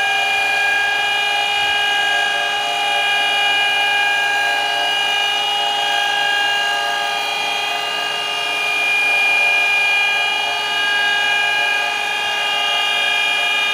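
Surface grinder running with a steady high-pitched whine of several tones together, its wheel grinding the hardened steel point of a lathe live center to regrind the chewed-up tip to 60 degrees.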